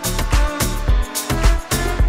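Background music with a steady drum beat and a strong bass line.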